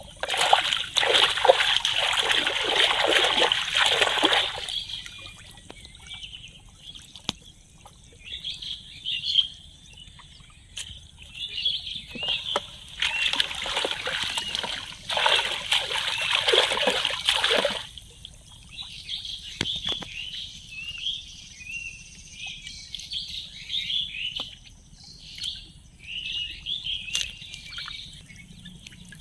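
Water splashing in two long spells, with birds chirping between and after them.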